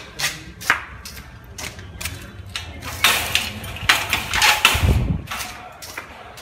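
A series of sharp clicks and knocks, a few a second, with a stretch of rustling noise in the middle and a low thump about five seconds in.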